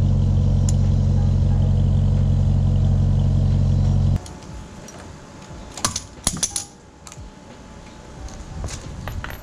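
A vehicle engine idling with a deep, steady rumble, which cuts off abruptly about four seconds in. Then come scattered light metallic clicks and clinks of hand tools working on a car wheel's lug nuts.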